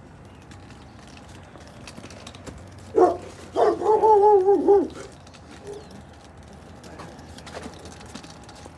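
A dog barking: one short bark about three seconds in, then a longer, wavering bark lasting about a second.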